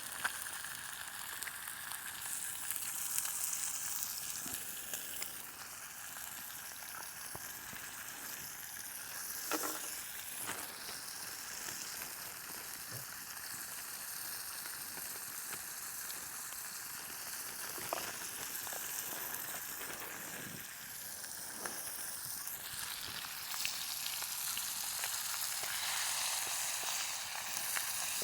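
Steak frying in butter in a pan: a steady high sizzle with a few faint ticks and pops.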